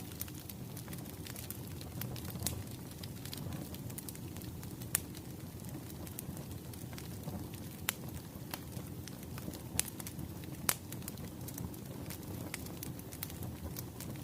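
Wood fire crackling: irregular sharp pops and snaps over a steady low rumble, with a few louder pops scattered through.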